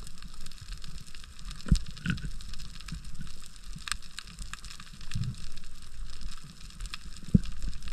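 Underwater ambience picked up through a camera's waterproof housing on a coral reef: a steady crackling hiss with scattered clicks over a low water rumble. Two dull thumps come through, one a couple of seconds in and one near the end.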